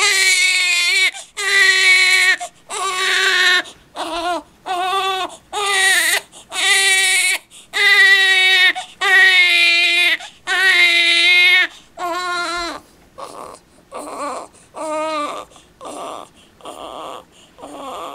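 Infant crying: a run of loud wails of about a second each with a short catch of breath between them, turning softer, shorter and breathier after about twelve seconds.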